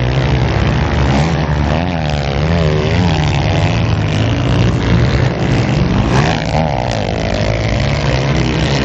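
Several motocross bikes' engines revving as they ride past on a dirt track. The pitch keeps rising and falling with the throttle.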